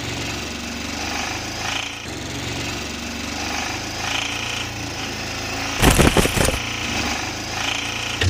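A steady mechanical rattle like a running truck engine, with a short loud burst of noise about six seconds in.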